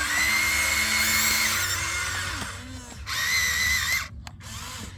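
Small electric motor whining at high speed, in two runs: one of about two seconds, then a shorter one of about a second that starts about three seconds in and cuts off suddenly.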